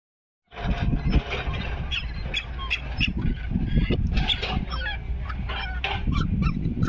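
A flock of cormorants calling: many short calls overlapping, over a low rumble. The sound cuts in about half a second in.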